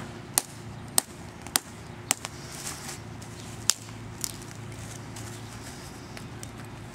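Knife hacking through a turkey's leg above the spur: sharp chopping strikes about every half second for the first two seconds, then two more spaced-out strikes, over a faint steady low hum.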